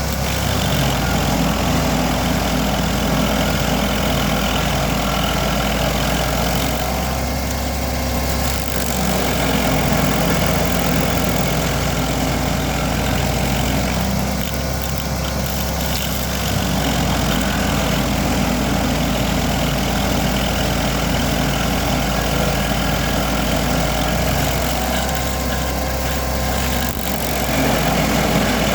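Vermeer SC382 stump grinder's 37 hp engine running steadily under load as its cutter wheel grinds a dry hickory stump. The grinding sound eases off briefly three times as the wheel sweeps across the stump.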